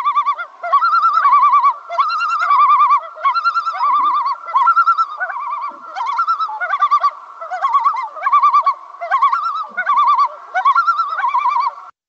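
Common loon giving its tremolo call: rapid, quavering, whiny notes in short phrases, repeated about once a second.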